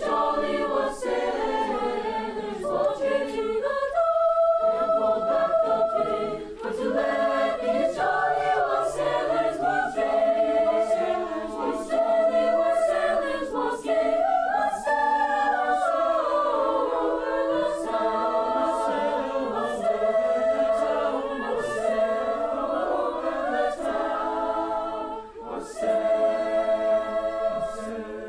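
Choir singing in harmony, several voice parts moving together with long held notes.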